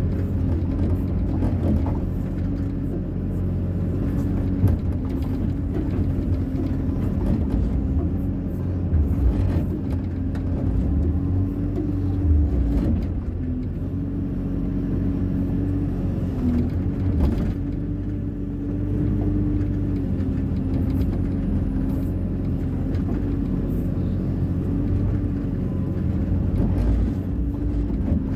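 Hyundai 140 wheeled excavator's diesel engine running at steady working revs, with a few brief knocks along the way.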